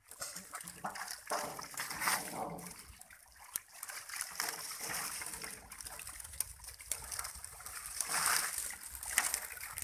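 Pond water splashing and sloshing as netted fish thrash and men wade among them, with dripping and trickling between surges. The splashing is heaviest about eight seconds in.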